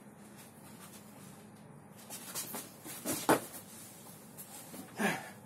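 Body movement on a wooden parquet floor during a low spinning karate kick: scuffs and rustling from about two seconds in, a sharp thump a little after three seconds, and another short burst of sound near the end.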